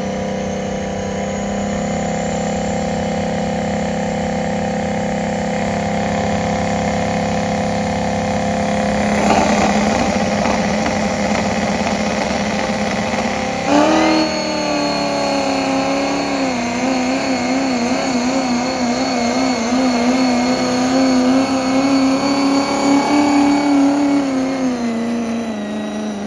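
Diesel pickup truck engine held at high revs under full load while pulling a sled. About halfway through its pitch jumps up sharply and then wavers up and down as it runs on, dropping back near the end.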